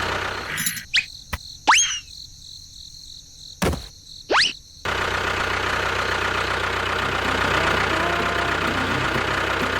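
A steady engine running that cuts out about a second in. In the gap come a few quick rising whistle sweeps and two sharp clicks, and the engine sound comes back about halfway through.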